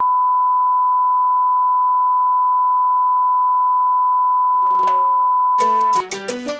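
Continuous test-tone beep of the kind played with broadcast colour bars, held at one steady pitch, then cutting off suddenly about six seconds in. Music with sharp percussion comes in just before the tone stops.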